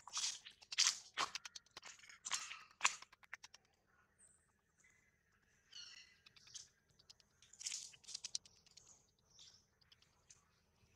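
Crunching and scuffing clicks from long-tailed macaques for the first three seconds, then quieter, with a few short high squeaks about six seconds in and another short run of clicks near eight seconds.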